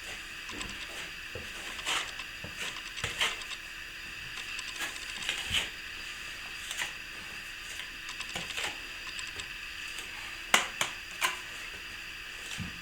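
Irregular light clicks and scrapes of a hand plastering tool working wet plaster on a wall around a fitted box, with two sharper clicks close together near the end.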